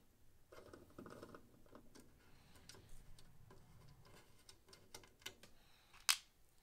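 Faint small clicks and taps of hands and a small screwdriver working on an amplifier's circuit boards, with one sharper click about six seconds in as a screw is dropped into a plastic parts organizer.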